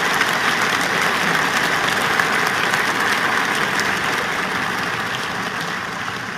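Audience applauding: dense, steady clapping that fades away toward the end.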